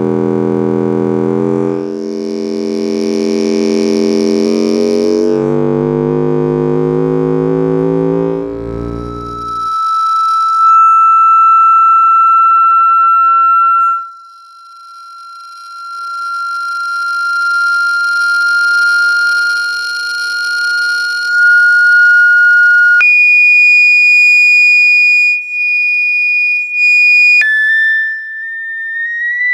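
Loudspeakers playing test tones from a phone frequency-generator app through an amplifier. For the first third a low tone comes out as a buzzy hum with many overtones, creeping up in pitch. Then it switches to a single pure high whistle-like tone that rises slowly, jumps higher about three quarters of the way in, drops back a little and climbs again.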